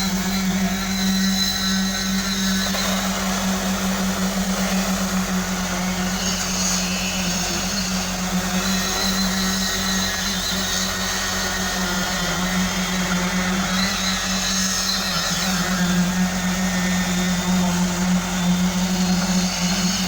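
Concrete-pouring machinery running steadily: a constant engine drone with a strong low hum.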